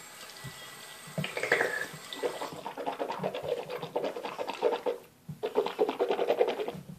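Tap water running into a bathroom sink. It stops briefly about five seconds in, then runs again.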